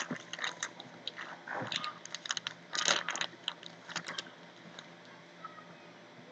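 Trading cards and their foil booster pack being handled, with irregular crisp crackles and clicks that are dense for about four seconds and then thin out.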